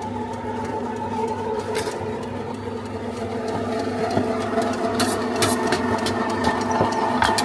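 A machine motor hums steadily, growing a little louder partway through. A few sharp clicks or knocks come over it, two close together about five seconds in and one near the end.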